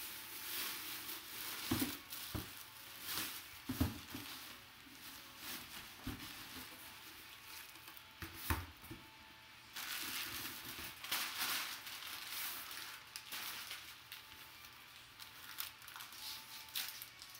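Packaging being crumpled, crinkled and torn open by hand, in irregular bouts with a few sharp crackles, as an item is unwrapped.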